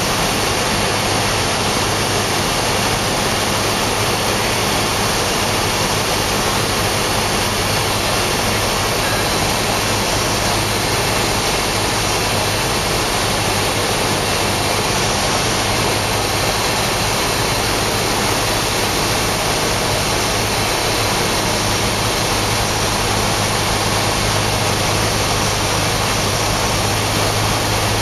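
Cessna 172's piston engine and propeller running steadily in cruise, heard inside the cabin as a constant drone mixed with airflow rush.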